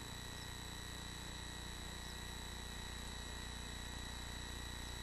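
Steady electrical hum with a constant high-pitched whine from the nest-box camera's microphone and wiring. No bird calls or rustling are heard; the chicks lie still.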